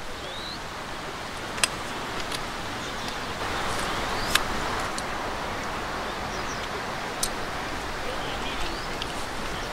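Steady outdoor background rush with a few short, high bird chirps and three sharp clicks spread through it.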